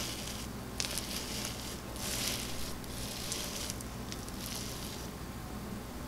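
Fishbowl slime, a clear slime packed with small plastic beads, crunching and crackling as a hand presses and kneads it. The crackle comes in several bouts and thins out over the last couple of seconds.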